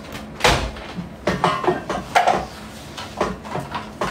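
A series of irregular knocks and clatters, like things being handled or a door or cupboard being moved.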